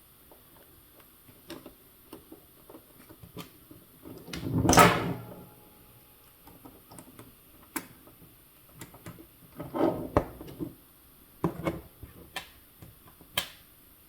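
Scattered clicks, small knocks and rattles of RC track links and small parts being handled on a workbench, with a louder rustling scrape about four to five seconds in.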